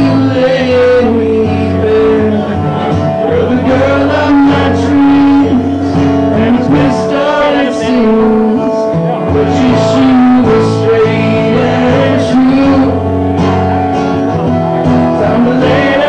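Acoustic guitar strummed steadily with a man singing over it, played live.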